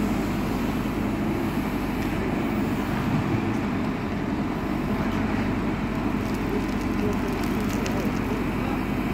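JCB 4CX backhoe loader's diesel engine running steadily under work, with a few light clicks in the second half.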